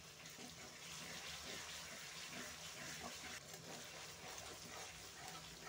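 Onion, garlic and ginger-garlic paste sizzling in hot oil in a kadhai, a steady hiss.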